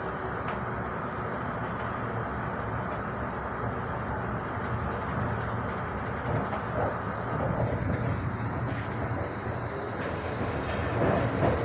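Rolling rumble of a GT8VU tram heard from inside the car as it runs along the track, steady and growing louder over the last couple of seconds.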